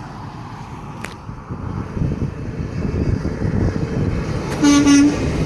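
A Peterbilt semi truck's engine rumbles and grows louder from about two seconds in. Near the end comes one short, single-note air-horn blast.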